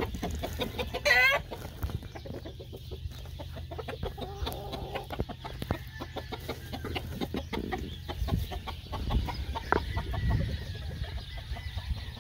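Caged gamefowl roosters clucking and calling, with one loud short call about a second in and scattered softer calls after it. A steady low hum runs underneath for most of the first eight seconds.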